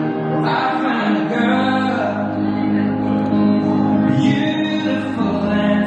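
Music with singing, held notes over sustained chords.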